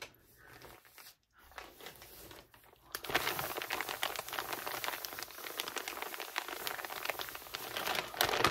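Brown kraft-paper envelope crinkled and rubbed between the hands: a few faint rustles, then from about three seconds in a steady dense crinkling full of sharp crackles.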